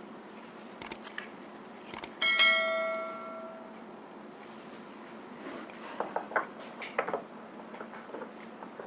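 Hard slate bars clicking and knocking together. One knock about two seconds in rings out with a clear bell-like tone that fades over about a second and a half. A few more sharp clicks follow near the end.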